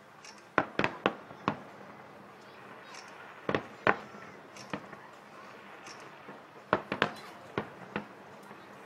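Fireworks aerial shells bursting: about a dozen sharp bangs in three clusters, around one second in, near four seconds, and again around seven seconds.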